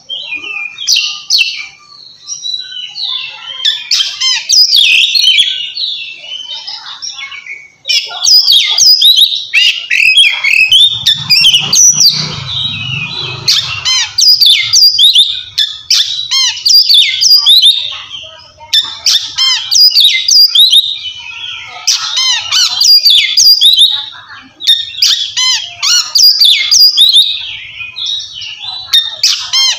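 Oriental magpie-robin singing loud, clear whistled 'ngeplong' song in repeated bursts of sliding notes with short pauses between phrases: the song a male uses to call out a rival.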